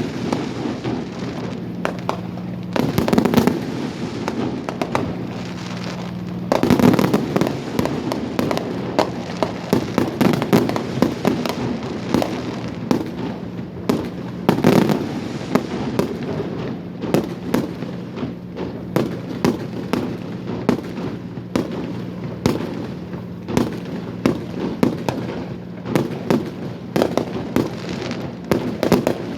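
Fireworks display: a dense, unbroken run of bangs and crackling, with louder volleys about 3, 7 and 15 seconds in. A steady low hum runs underneath.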